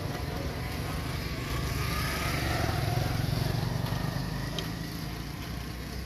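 A motor vehicle's engine passing by, its rumble swelling to a peak about halfway and then fading.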